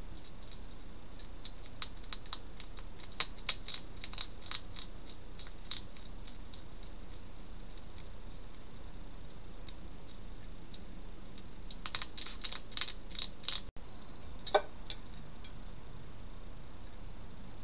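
Hedgehog eating from a food dish: runs of short, sharp crunching clicks, a few seconds in and again about twelve seconds in, over a steady hiss.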